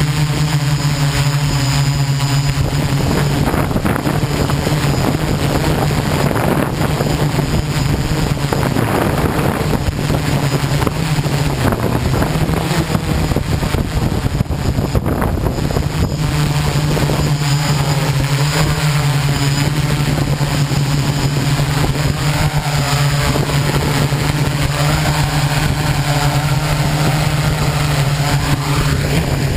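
Electric motors and propellers of a MikroKopter quadcopter, heard from its onboard camera: a steady drone with wind rush over the microphone. The hum thins and wavers for a stretch in the middle, holds steady again as the craft flies low over the ground, and cuts off right at the end as it sets down.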